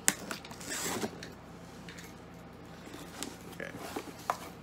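Cardboard shipping box being opened and handled by hand: a sharp click at the start, a brief tearing, rustling scrape about a second in, then a few light scattered taps and clicks.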